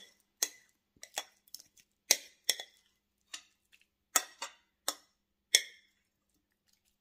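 Metal utensil clinking and scraping against a glass mixing bowl as a thick creamy mixture is scraped out: about a dozen separate clinks, each with a short ring, irregularly spaced.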